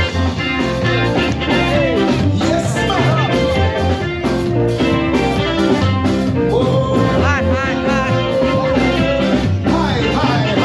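Live Caribbean band playing upbeat dance music with a steady beat.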